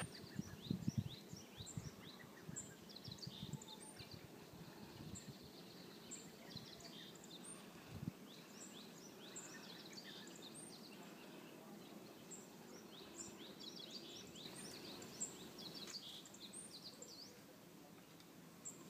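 Small birds chirping in the background, many short high calls scattered throughout, faint. A few low thumps in the first few seconds and once about eight seconds in.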